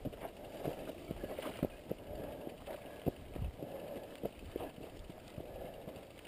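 Footsteps scuffing on a dirt trail and the rattle of mountain bikes being pushed uphill by hand: irregular steps and clicks, several a second.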